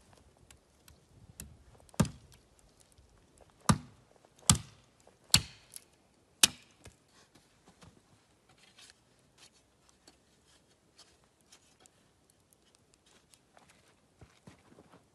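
Hatchet chopping wood on a stump chopping block: five sharp blows, starting about two seconds in and ending about four and a half seconds later.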